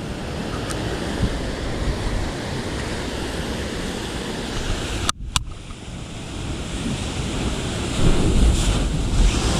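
Ocean swell surging through a rocky blowhole and sea cave, a steady rush of water with wind buffeting the microphone. It grows louder and deeper near the end as a bigger surge comes through.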